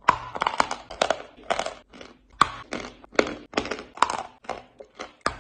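A piece of chalk being bitten and chewed close to the microphone: a run of dry, sharp crunches in quick irregular clusters with short pauses between them.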